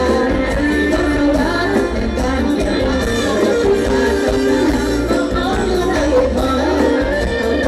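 Live Isan band music with a steady beat and heavy bass, and a woman singing into a microphone.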